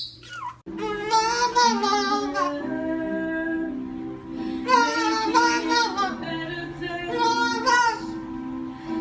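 Music: a high singing voice with strong vibrato over steady held chords, starting abruptly just under a second in after a short falling whistle.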